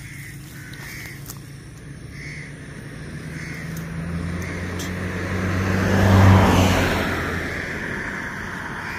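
A motor vehicle passing by: its engine hum grows louder, peaks about six seconds in, then drops in pitch and fades away. Crows caw now and then, mostly in the first half.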